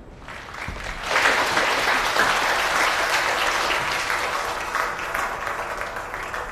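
Audience applauding. The clapping swells within about the first second, holds, then gradually dies away near the end.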